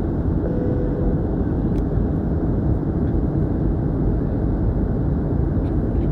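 Steady cabin noise of a jet airliner in flight, a constant low rumble of engines and airflow heard from inside the cabin by the wing.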